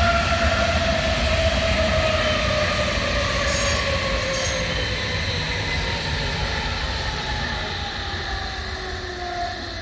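Berlin S-Bahn electric train running past and drawing away, with a whine that falls steadily in pitch as it slows. The running noise of the wheels on the rails fades gradually.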